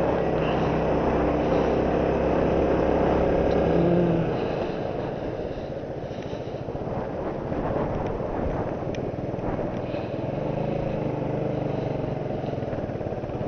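Suzuki Marauder 125 motorcycle's single-cylinder engine running while being ridden, heard from inside the rider's helmet with wind noise. The engine sound is strongest at first, drops away about four seconds in, and comes back more faintly later.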